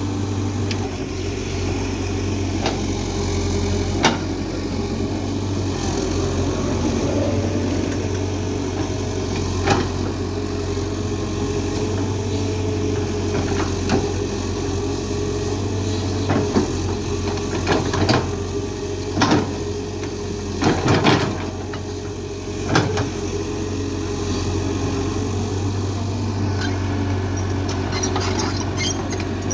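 Excavator's diesel engine running steadily, with several sharp knocks and clanks scattered through, bunched together about two thirds of the way in.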